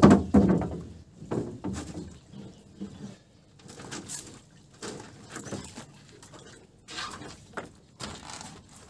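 Irregular knocks, rustles and splashes as a fishing net and its long wooden pole are worked up out of the water beside a boat, opening with a heavy thump.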